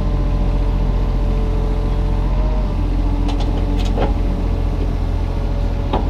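Kubota mini excavator's diesel engine running steadily under hydraulic load while backfilling a trench with sand, with a few short knocks about three to four seconds in and again near the end.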